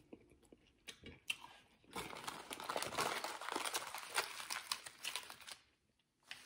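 Aluminium foil being handled and crumpled by hand, a dense crinkling crackle that starts about two seconds in and stops suddenly a little before the end. A few faint clicks come before it.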